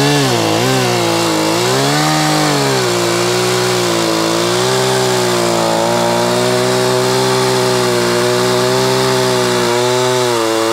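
Two-stroke chainsaw running at high revs while cutting into a log, on straight gas with no two-stroke oil mixed in. Its pitch dips about half a second and two seconds in, then holds high and fairly steady.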